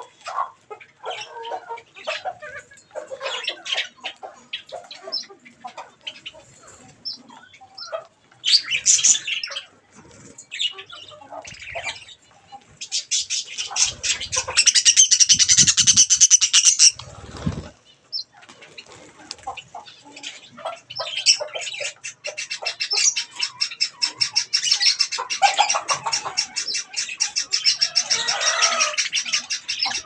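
A flock of budgerigars chirping and chattering while feeding, in many short high calls. A loud, fast-pulsed stretch of about four seconds comes midway, and the chatter thickens into a continuous warble over the last third.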